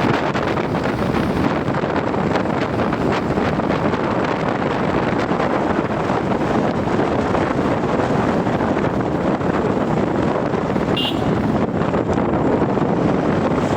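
Steady wind rush over the microphone and road noise from a motorcycle ride at speed, with a short high beep about eleven seconds in.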